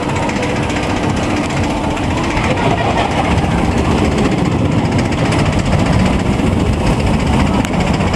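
Bobsled roller coaster train rumbling past close by along its trough-shaped track, a loud continuous rattling rumble that swells a little midway.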